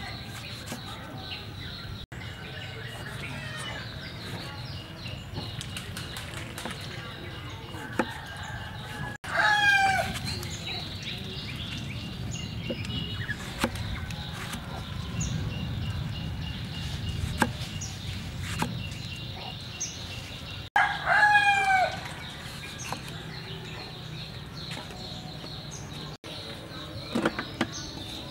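A rooster crows twice, once about nine seconds in and again about twenty-one seconds in, each crow about a second long. Between the crows a knife taps now and then on a cutting board as tomatoes are sliced.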